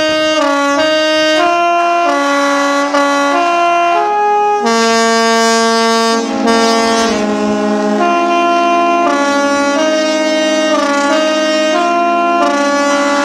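Superyacht musical air horns playing a tune. A run of short stepped notes comes first, then from about five seconds in several horns hold long blasts together under the continuing melody.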